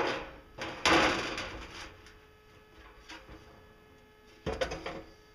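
Thin sheet metal being handled on a metal workbench: a sharp clank at the start, then a louder clattering rattle lasting about a second as the sheet is moved, and another short clatter near the end, over a faint steady hum.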